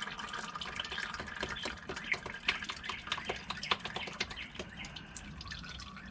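Automatic transmission fluid dripping into a drain pan from the opening where the transmission filter has just been pulled, quick irregular drips that grow fewer near the end.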